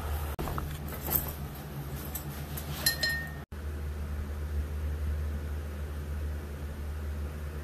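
Metal belt buckle clicking and clinking as it is fastened, with a brief ring near three seconds, over a steady low hum. The clinks stop suddenly about halfway through, leaving only the hum.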